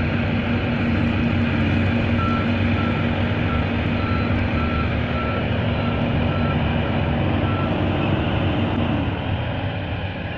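Heavy truck engine running steadily while its reversing alarm beeps, a single high tone repeating roughly twice a second, starting about two seconds in and stopping a couple of seconds before the end. The engine sound fades near the end.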